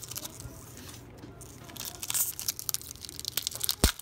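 Foil wrapper of a trading-card pack crinkling and tearing as it is pulled open, busier in the second half, with one sharp knock near the end.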